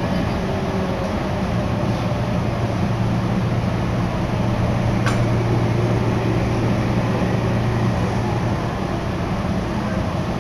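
Cabin running noise of a Meitetsu Tokoname Line electric train under way: a steady low hum and rumble, a little louder in the middle as a red train passes the other way, with one sharp click about five seconds in.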